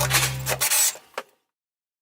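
A background music track ends abruptly, followed by a few short scratchy noises and a single click, then dead silence.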